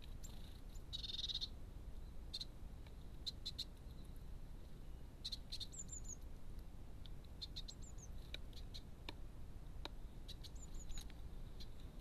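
Light, scattered clicks and taps of a male common blackbird's bill picking mealworms from a plastic feeder tray, with short, high, falling chirps from small birds three times, over a low steady hum.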